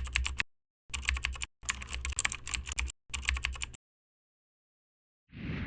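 Mechanical keyboard typing sound effect: four quick runs of rapid keystroke clicks, stopping a little under four seconds in. Near the end comes a brief soft whoosh.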